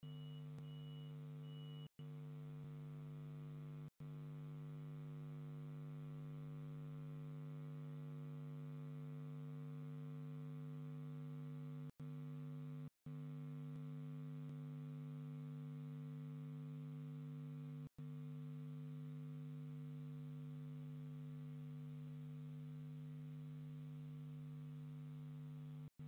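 Steady electrical mains hum picked up by the nest-box camera's audio, a low buzzing drone with several overtones, cutting out for an instant several times. No sound from the barn owl stands out.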